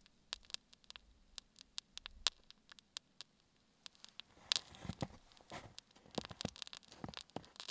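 Spruce-sap candle burning in its pool of melted resin, sputtering with small irregular pops and crackles that become denser and louder from about four and a half seconds in.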